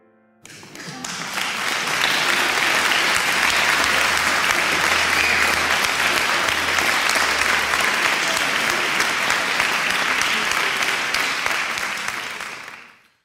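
Audience applauding, starting about half a second in, building quickly, then holding steady before fading out near the end.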